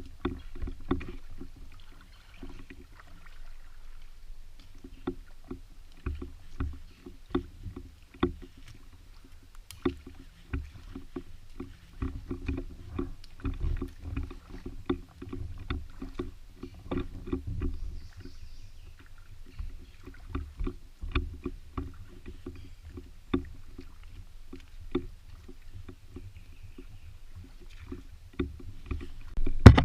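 Footsteps and gear knocking and rubbing against a body-worn GoPro while walking, as irregular thuds and clicks over a steady low rumble on the microphone.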